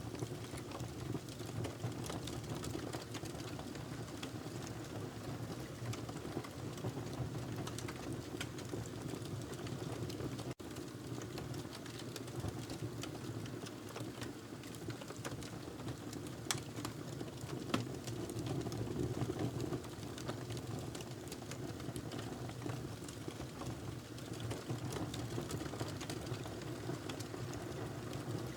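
Wood fire burning in a fireplace: a steady low rumble of flames with frequent small crackles and pops. Two sharper pops come a little past the middle, and the sound drops out for an instant about a third of the way in.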